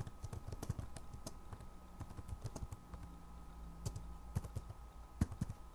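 Typing on a computer keyboard: a fast, uneven run of key clicks, over a faint steady hum.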